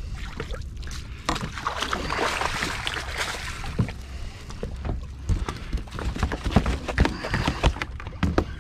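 Water splashing alongside a small fishing boat for a couple of seconds, then a run of sharp knocks and thumps, over a steady low rumble.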